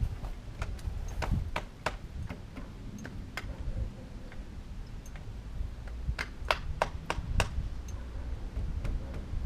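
Slack drive chain from a belt-to-chain conversion on a 2008 Harley-Davidson Nightster slapping against the bike. It makes irregular sharp clicks, with a quick cluster of five starting about six seconds in, over a low rumble. The slap is the sign of a chain that is too long and needs a tensioner or shortening.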